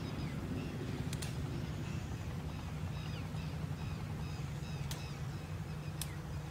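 Small birds chirping in a quick repeated series over a steady low engine hum, with a few faint clicks.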